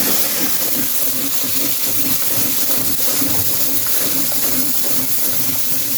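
Duck pieces sizzling in hot curry in a big pot: a steady hiss that does not let up.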